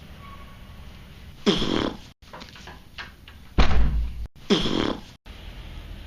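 Fart noises: a few short, loud bursts, each opening with a falling pitch, the same sound repeated about 1.5 s and 4.5 s in. A deeper, louder burst comes about three and a half seconds in.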